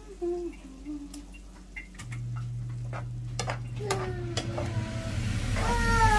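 Thick lentil soup simmering in a skillet while a spoon stirs it, with scattered clicks and scrapes of the spoon against the pan. A low steady hum comes in about two seconds in.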